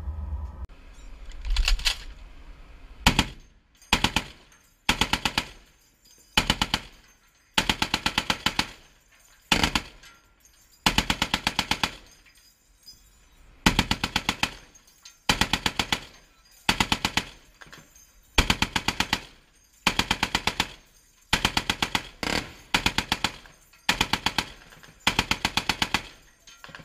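M2 Browning .50-calibre heavy machine gun fired in a long string of short bursts, each a quick run of shots, starting about a second and a half in.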